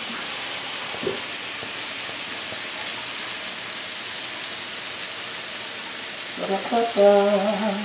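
Flour-dredged pork medallions frying in hot oil in a skillet, a steady sizzle with fine crackling. Near the end a man's voice comes in briefly over it.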